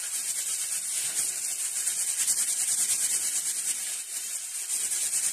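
Plastic-gloved, oiled hands rolling and spreading a rope of date paste on a plate: a steady rubbing, hissing swish of plastic against the paste and plate.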